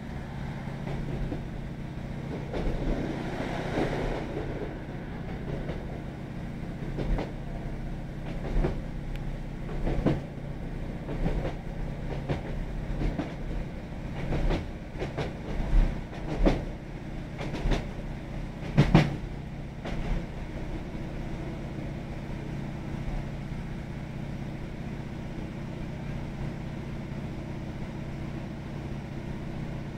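A Class 156 Sprinter diesel multiple unit running along the line, heard from inside the carriage: the steady drone of its underfloor Cummins diesel engine, with the clickety-clack of wheels over rail joints every second or two through the middle stretch, the sharpest knock a little before two-thirds of the way through, then smoother running.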